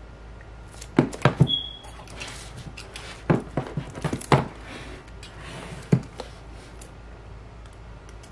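A shrink-wrapped cardboard box being handled and set on a table: a string of knocks and taps with some crinkling of the plastic wrap, clustered about a second in and again around three to four seconds in, with one more knock near six seconds and a brief high squeak about a second and a half in.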